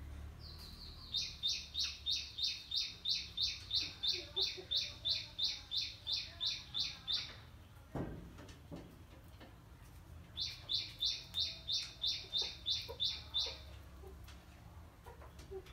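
A bird chirping a fast, even run of high notes, about three a second, for some six seconds, then again for about three seconds. A single sharp knock falls between the two runs.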